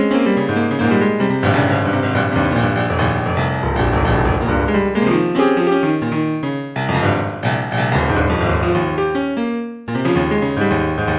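Background music led by piano, with many quick notes, fuller and denser from about a second and a half in, and a short break just before the end.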